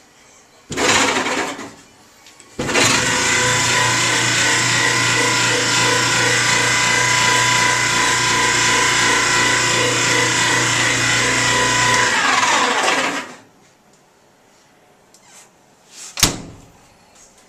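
GE Profile clothes dryer starting briefly, then running with a loud steady squeal over its motor hum, the squeal pulsing as the drum turns. About ten seconds later the motor cuts out and the squeal slides down in pitch as the machine spins down, followed later by a single sharp click. The squeal is the blower wheel on the motor shaft rubbing against the dryer's front metal panel.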